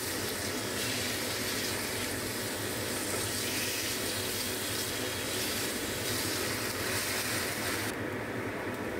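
Pork ribs and garlic sizzling in hot oil in a frying pan as they are stirred, a steady frying hiss. The hiss softens about eight seconds in, as cooking wine is poured into the pan.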